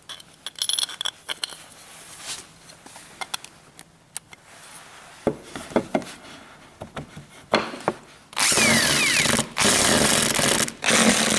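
Scattered clicks and knocks of screws and cabinet parts being handled, then a power drill running for about three seconds with two brief stops, driving a screw to fix a leg onto a shoe cabinet.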